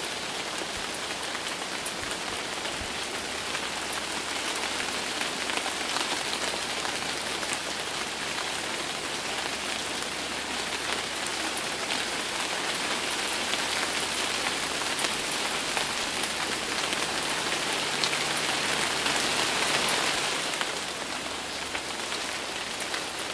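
Steady rain falling, with many individual drops ticking through it. It grows louder for a couple of seconds shortly before the end, then eases.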